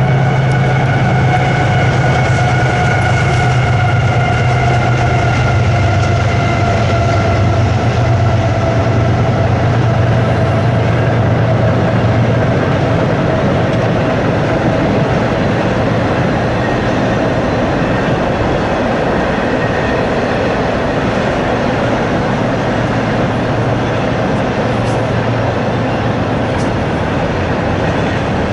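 CSX diesel locomotive passing at speed, its low engine drone and a whine sliding slowly down in pitch over the first dozen seconds, then the steady noise of double-stack intermodal cars rolling by.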